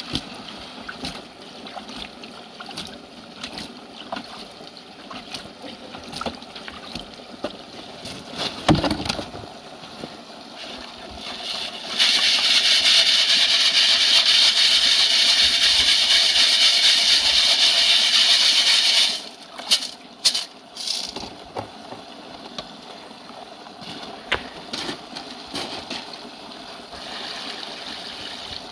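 Creek water and gravel: splashing and small clicks of stones. About halfway through, a loud steady rushing noise sets in for about seven seconds, then cuts off suddenly, followed by a few knocks.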